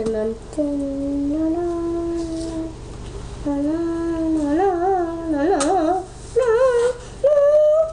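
A voice singing a wordless tune in long held notes, wavering up and down around the middle and moving to higher notes near the end.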